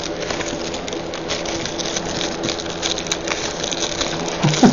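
Plastic shrink-wrap on a sealed box of baseball cards crinkling and crackling as it is torn open and pulled off, a dense run of small crackles with a few louder snaps near the end. A faint steady hum lies underneath.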